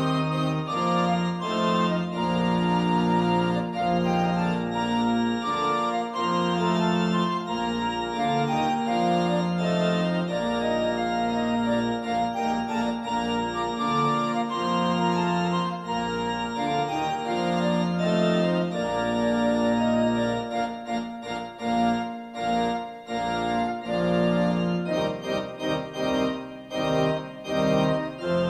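Yamaha Electone electronic organ playing an instrumental hymn in sustained chords over a moving bass line. From about two-thirds of the way in, the chords become shorter and more detached.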